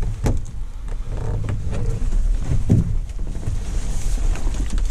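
Hollow thumps and knocks from a canoe hull as someone shifts about in it, two clear thumps with smaller knocks between, over a low steady rumble.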